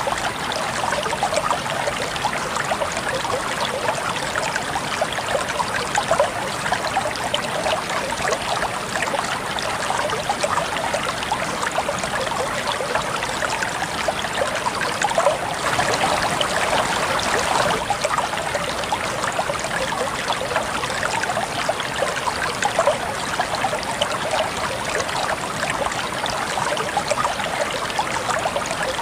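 A river running steadily, its water rippling and splashing in a continuous rush.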